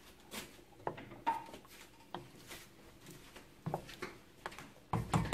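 A utensil stirring thick soup in a stainless steel pot, with scattered light clinks and scrapes against the pot and a louder cluster of knocks near the end.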